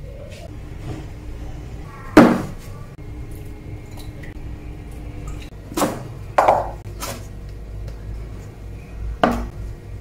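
Dishes and bamboo steamer baskets being set down and handled: a few sharp knocks, the loudest about two seconds in, more around six to seven seconds and one near nine seconds.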